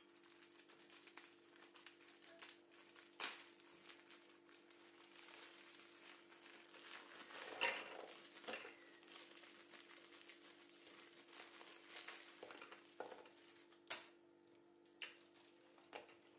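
Faint crinkling of a plastic biscuit wrapper and dry biscuits clattering into a plastic food-processor bowl, with scattered light taps and a louder crackle of the wrapper about halfway through, over a faint steady hum.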